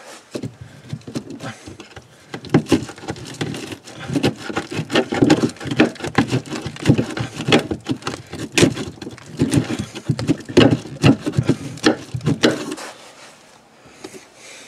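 A hand-held blade cutting and scraping into OSB board at the edge of a hole, in a rapid, irregular run of short scraping and cracking strokes that stops about thirteen seconds in.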